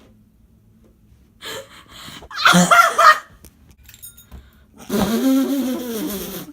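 A person's strange wordless vocal noises: a short, high-pitched squeal about two and a half seconds in, then a long drawn-out vocal sound that rises and falls in pitch near the end.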